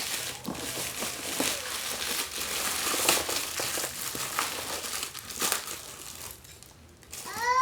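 Plastic packaging crinkling and rustling as it is handled and pulled open, in irregular bursts that ease off about six seconds in. Near the end a brief pitched cry rises and falls.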